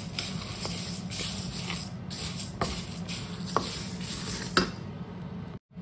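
Wooden spatula stirring raw glutinous rice and kaffir lime leaves as they dry-toast in a pan: the grains scrape and rustle, with a sharp tap of the spatula on the pan about once a second. A steady low hum runs underneath, and the sound cuts out briefly near the end.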